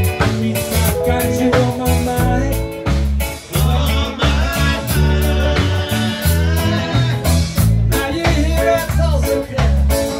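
Live band playing an upbeat song on electric guitar, bass guitar, drum kit and keyboard, with a man singing lead over a steady beat.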